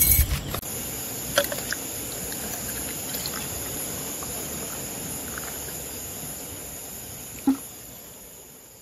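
Orange juice poured from a bottle into a glass mug: a steady trickling pour with a small clink about a second and a half in. A short knock sounds near the end as the sound fades out.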